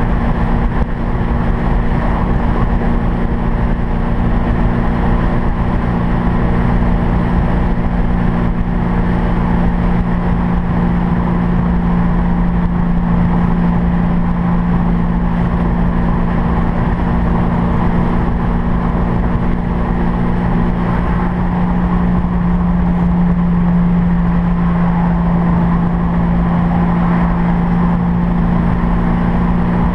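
A 1965 Mustang GT350R pro-touring car's engine and exhaust droning steadily at freeway cruising speed, mixed with road and wind noise. The drone holds one low pitch and grows a little stronger over the last third.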